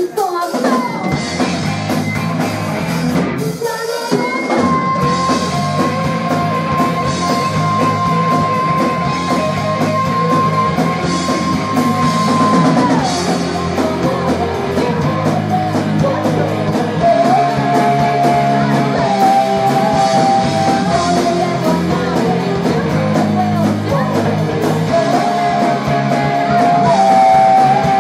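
Live rock band playing with electric guitars, electric bass and drum kit, and singing. The music breaks briefly at the very start, and a few seconds in a long high note is held for about eight seconds.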